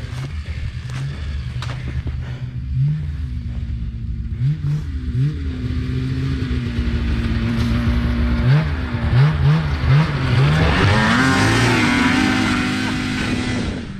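Snowmobile engine revved in a series of quick throttle blips, then held at higher revs for a few seconds near the end, with a strong hiss rising along with it before it drops away.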